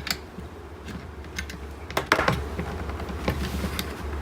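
Scattered small clicks and light knocks of hand tools and plastic multimeter parts being handled on a workbench, irregular and a few at a time, with a cluster about two seconds in, over a steady low hum.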